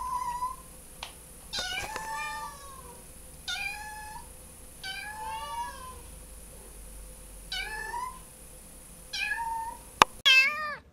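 Ginger kitten meowing repeatedly, short high meows every second or two. A sharp click comes near the end.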